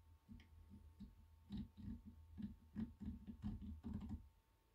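Grimy old metal gears of a Dazey Sharpit hand-crank knife sharpener ticking and clicking as the crank is turned slowly by hand with the gear housing open. The clicks are irregular, come thicker and louder from about a second and a half in, and stop near the end.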